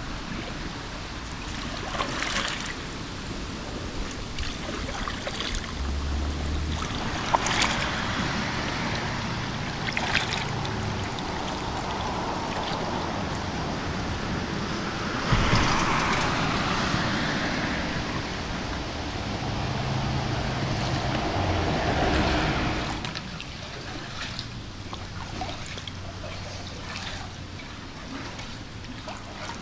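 Kayak paddles dipping into calm river water: water sloshing and trickling off the blades and hulls, with scattered louder splashes, the loudest about halfway through. The last several seconds are quieter.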